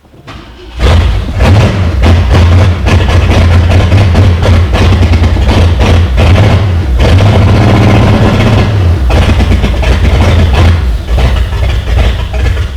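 A 1966 Ford Thunderbird's V8 catching about a second in and running loud and rough, with no exhaust system fitted. It eases off slightly near the end.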